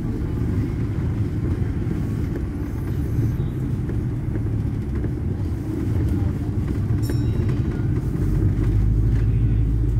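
Steady low engine and road rumble heard inside a moving double-decker bus, growing heavier and deeper near the end, with a single light click a few seconds before.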